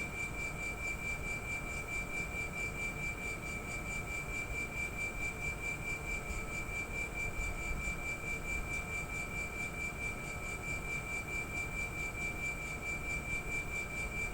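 Air-conditioner outdoor unit's compressor running with a steady high-pitched whine over a low hum, the abnormal compressor noise under investigation.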